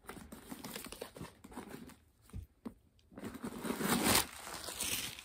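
Packing paper rustling and crinkling as it is pulled out of a handbag and crumpled, loudest about three to four seconds in.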